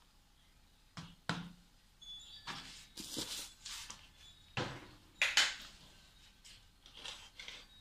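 A tablespoon scooping powdered non-dairy creamer and tipping it into a glass: light knocks and clicks of the spoon against the containers, with short scraping rustles of the powder and a sharper knock about halfway through.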